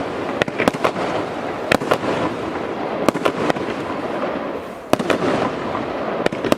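A 100-shot, 25 mm-calibre firework cake firing in rapid succession: a dense run of sharp bangs, several a second, over continuous crackling. There is a brief lull a little past halfway before the shots pick up again.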